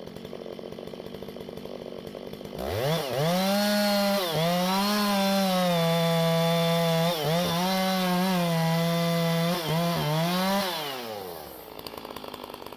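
Large chainsaw idling, then revved up to full throttle about three seconds in and held high while cutting into a thick cedar trunk, its note dipping briefly several times under load. It drops back to idle near the end.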